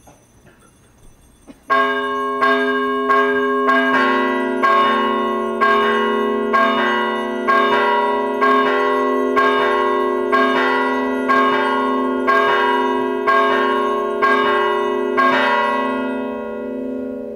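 A bell struck about once a second, each stroke ringing on into the next; the strokes stop near the end and the ringing fades. It is rung during the blessing with the monstrance at Benediction.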